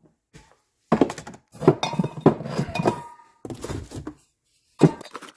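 Cans and bottles of shop supplies set one after another onto a cupboard shelf: a series of clinks and thunks, one briefly ringing about three seconds in, with some rustling of packaging.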